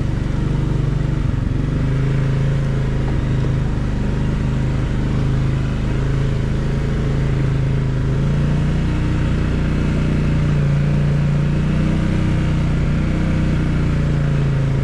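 Can-Am Outlander 700 ATV engine running at a steady, easy riding speed, its pitch shifting only slightly.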